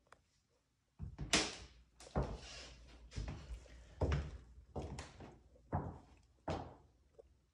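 Footsteps on a hardwood floor, a thump with a scuffing tail about once a second.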